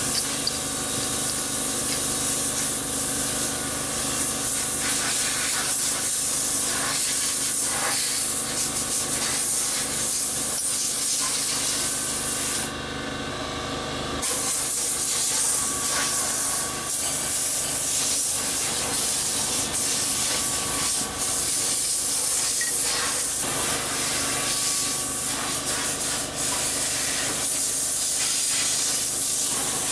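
A steady hiss with faint steady hums and scattered light ticks. The hiss cuts out for about a second and a half near the middle.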